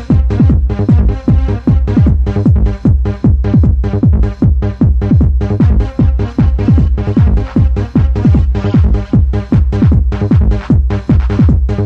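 Techno dance music from a 1994 sound-system cassette mix: a fast, steady kick-drum beat whose bass hits fall in pitch, under sustained synth chords.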